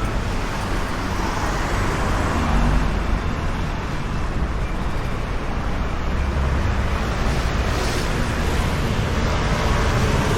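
Street traffic: a steady wash of road noise and engine rumble, swelling slightly as vehicles pass.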